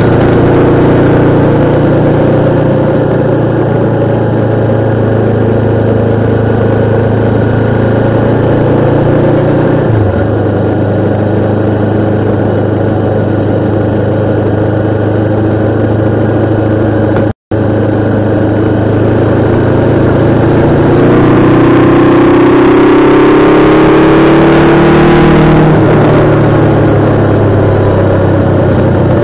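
Motorcycle engine running at fairly steady revs. Its pitch climbs from about 21 seconds in and drops back near 26 seconds as the throttle is opened and then rolled off. The sound cuts out for a split second about 17 seconds in.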